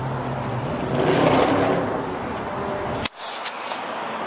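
Road traffic: motor vehicles running in the street, with a low steady engine hum and a swell of traffic noise about a second in. Just after three seconds comes a short burst of handling clicks and rustle on the camera's microphone.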